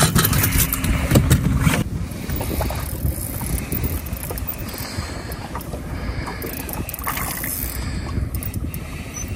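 Wind rumbling on the microphone in an open fishing boat. A low steady hum and a few knocks fill the first two seconds, then the hum stops.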